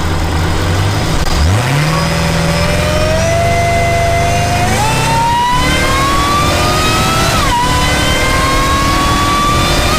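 Supercharged car engine accelerating hard, its supercharger whine climbing steadily in pitch with engine speed. The whine drops sharply at a gear change about seven and a half seconds in, then climbs again.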